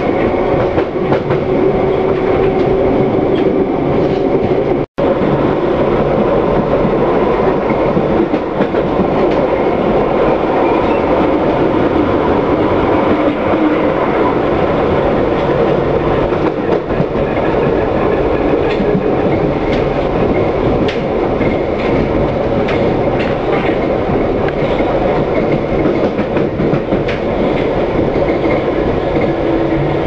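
London Underground D stock train running at speed, heard from inside the carriage: a steady rumble and hum of wheels on rail with scattered clicks, slowing from about 35 to 25 mph in the second half. About five seconds in, the sound cuts out for a split second.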